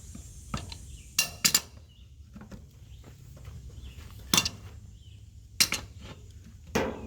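Metal wrench and wheel nuts clinking and clanking as the disc wheel nuts are worked loose: about six sharp metallic clanks at uneven intervals, the loudest pair about a second and a half in.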